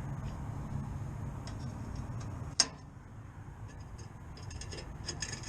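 A steady low rumble, then one sharp click a little past halfway, after which the rumble drops away, followed by a scatter of light ticks near the end.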